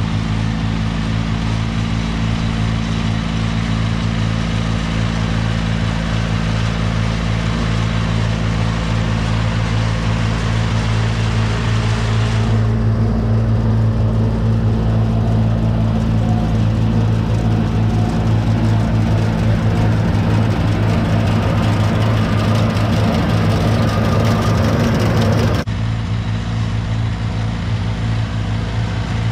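Tractor engine running steadily at working revs as it pulls an Oxbow pea picker slowly through the field. The sound changes a little about halfway through and again shortly before the end.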